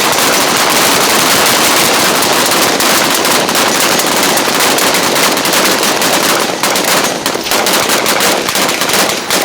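Several rifles firing together in rapid, overlapping volley fire, a dense continuous crackle of shots that thins toward the end into more separate shots.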